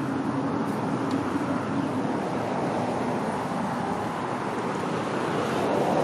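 Steady rushing background noise, even throughout with no distinct events, a little louder near the end.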